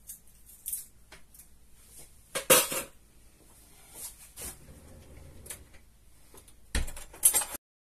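Kitchen utensils and dishes clinking and knocking at irregular intervals, with a loud clatter about two and a half seconds in and another near the end, after which the sound cuts off.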